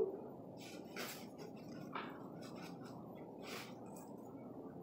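Salt poured from a canister onto a metal spoon over an aluminium pot: a few short, faint rustling pours, with a light click at the start.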